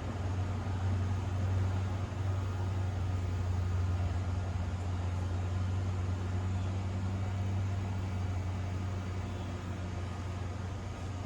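Steady low mechanical hum under an even background rumble, with no rise or fall in pitch.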